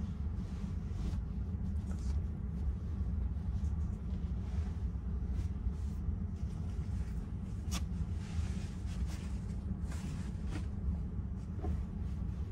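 A steady low rumble with a few faint clicks, one sharper click a little past the middle.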